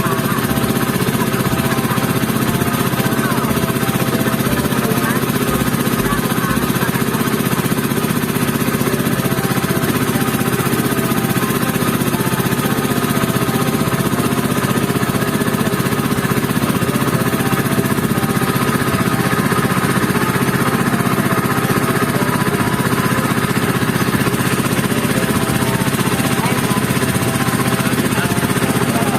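A boat's engine running steadily with the boat under way.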